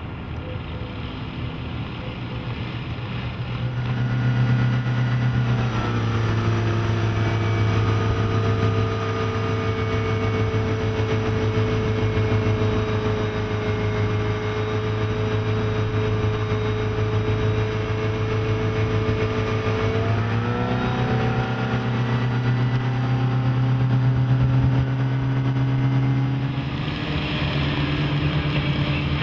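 Volvo Penta 5.0GL V8 sterndrive engine of a bowrider running under way. Its note climbs about five seconds in, holds steady at speed, then drops back as the throttle eases about twenty seconds in, with a steady hiss over it.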